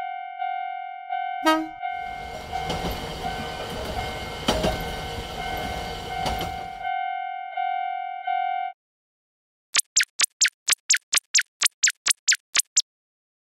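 Japanese level-crossing alarm bell ringing with its repeating clang while a Shinkansen rushes past for about five seconds, with a brief horn toot as it arrives. The bell stops about nine seconds in. Near the end comes a quick run of about fourteen short high blips.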